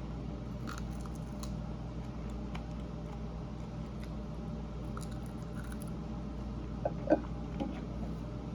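A person chewing meat with soft, wet mouth clicks and smacks, a couple of them a little louder about seven seconds in, over a steady low hum.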